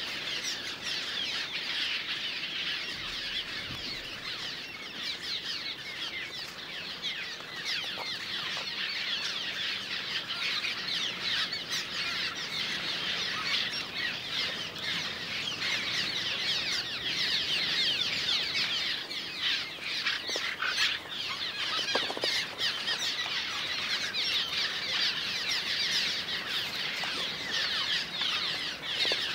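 A colony of cliff swallows calling together: a dense, unbroken chatter of many overlapping short, high, falling notes.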